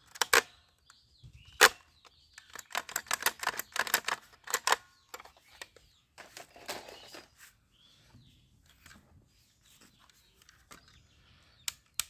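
Sharp plastic clicks from a toy electric soft-bullet gun being worked and fired: single snaps, then a rapid string of about eight clicks a second, then scattered lighter ticks.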